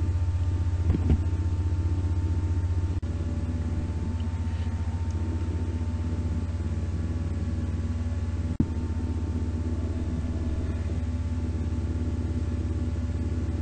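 Steady low hum with a few faint steady tones above it, no speech. There is a click about three seconds in, after which it is slightly quieter, and a brief dropout later on.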